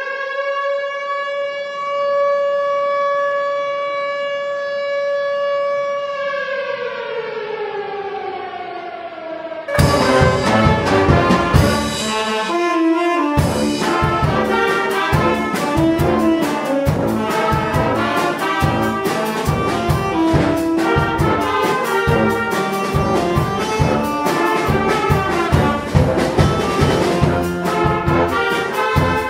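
Air-raid siren wailing: it rises, holds one pitch, then falls away, sounding an air-raid alert. About ten seconds in it cuts off and a children's brass band starts playing, with saxophones, trumpets and tuba over a steady beat.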